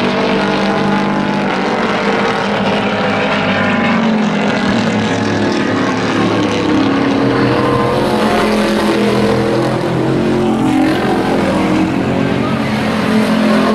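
Several hobby-class pickup race trucks' engines running hard at once on a paved oval, their pitch rising and falling as the drivers accelerate and lift through the turns.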